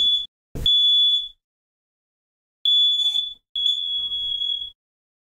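Smoke alarm sounding its shrill, high single-tone beeps, set off by smoke from a toaster: four long beeps with a pause after the second, the last one longer, then it stops.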